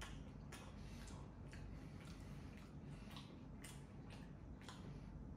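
Faint chewing of a hard-baked pizza crust: soft, irregular crunches about twice a second.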